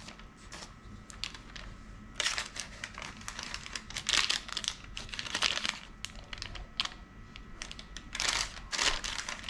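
Parchment paper rustling and crinkling under a small metal spatula spreading batter over a lined sheet pan. The rustling scrapes come in stretches: from about two seconds in to about six seconds, then again near the end.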